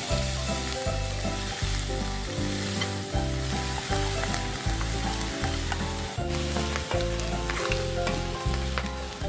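Boiled pork hock and chopped onion sizzling in hot oil in a pan as they are stirred together, with a few light clicks of the utensil. Background music plays underneath.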